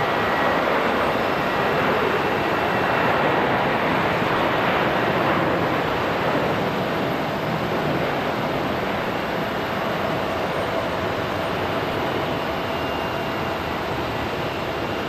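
Jet airliner engines running, a loud steady rush of noise with faint high whining tones that slowly fades.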